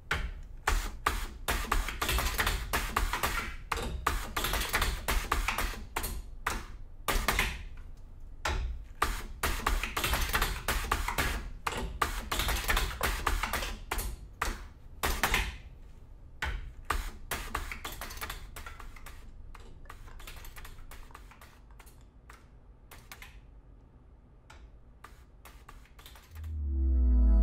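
Irregular clicking and clacking of a NEWECO ZTA-100 benchtop tube-closing machine at work, its jaws folding and crimping the ends of filled aluminium tubes as tubes are set on its turntable. The clatter thins out and gets quieter in the second half, and music comes in just before the end.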